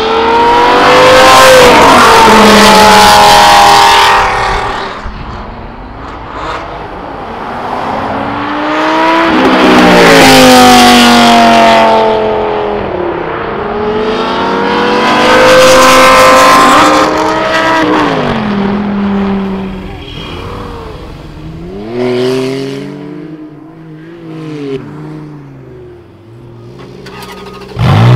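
Lamborghini Gallardo V10 and other supercars accelerating hard past, three loud passes, each engine note climbing and dropping at upshifts and then falling away as the car goes by. Right at the end a different engine cuts in loudly.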